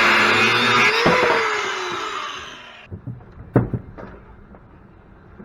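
Handheld power tool cutting metal, then let off and winding down with a falling whine over about two seconds. A few short metallic knocks follow near the end.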